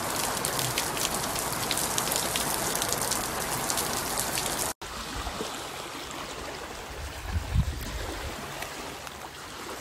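Steady heavy rain falling on a tiled courtyard, with many separate drop hits. About five seconds in, a cut to the quieter, lower rush of muddy floodwater running past, with a brief low bump near the end.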